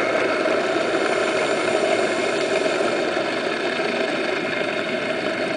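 Steady mechanical drone, like an engine running, heard underwater, with an even hiss and a few held tones over it.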